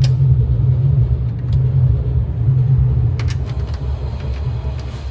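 A loud, steady low rumble, with scattered light clicks and taps, a small cluster of them about three seconds in.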